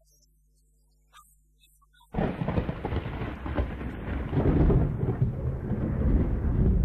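Near silence, then about two seconds in a sudden loud, deep rumble like rolling thunder starts and keeps going: a dramatic stage sound effect.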